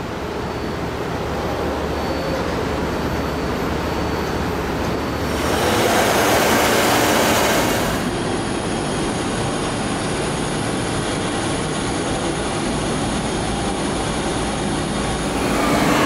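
Steady machine noise of a CNC milling machine cutting a metal mould cavity with an end mill, louder for a few seconds near the middle.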